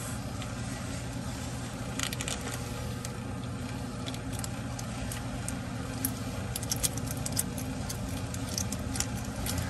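A steady low machine hum, with scattered light clicks and taps of handling.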